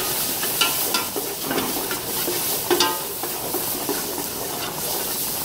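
Chopped garlic, onion and herbs sizzling in an aluminium stockpot while a wooden spatula stirs in tomato paste, with a steady frying hiss and short sharp scrapes of the spatula against the pot.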